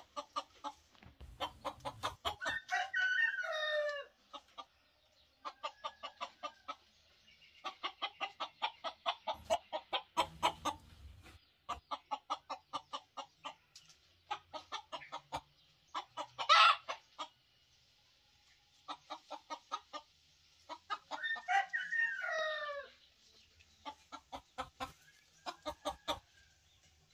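Chickens clucking in quick runs of about five clucks a second. A young rooster crows twice, a few seconds in and again about three-quarters through, each crow short and dropping in pitch at the end. A single sharp, louder call comes about two-thirds through.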